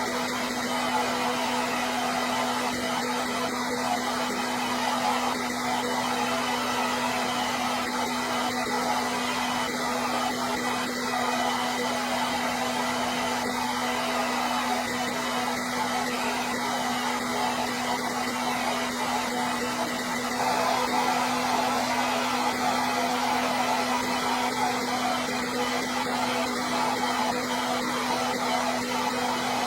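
Hair dryer running steadily: an even rush of blown air over a constant low motor hum and a faint high whine.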